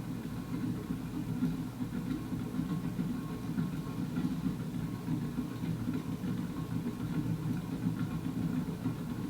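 Supreme Mark III Emperor-style ceiling fan's stamped motor running steadily, a constant low hum with an audible rumble from its bearings.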